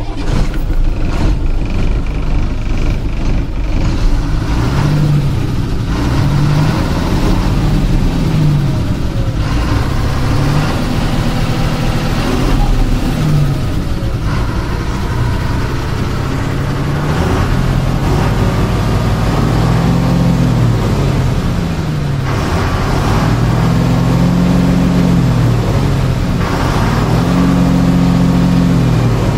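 Ashok Leyland 3118 truck's diesel engine running loud, its speed rising and falling several times, each rise and fall taking a second or two.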